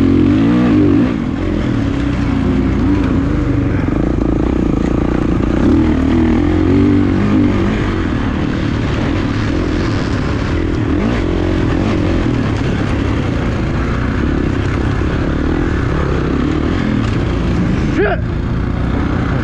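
Motocross dirt bike engine running hard, its revs rising and falling continuously as the bike is ridden, with a quick rev near the end.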